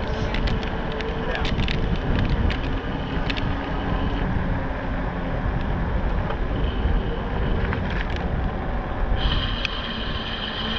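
Wind buffeting the microphone while riding an e-bike, with the bike's running noise under it. A faint steady whine and scattered light clicks and rattles run through it, and a higher steady whine joins about nine seconds in.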